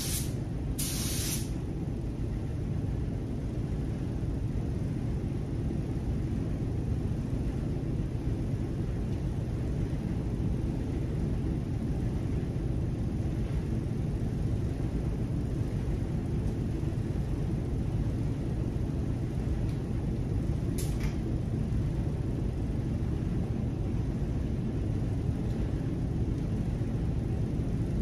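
Steady low rumble of a paint spray booth's ventilation running. A spray gun's hiss cuts off at the start, comes back in a short burst about a second in and once more briefly about 21 seconds in.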